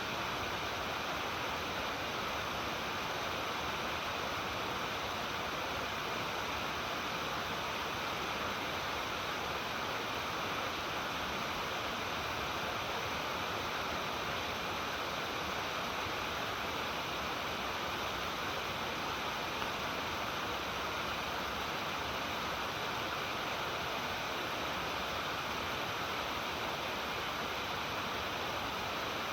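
Water pouring and splashing down a stepped waterfall in a steady, unbroken rush.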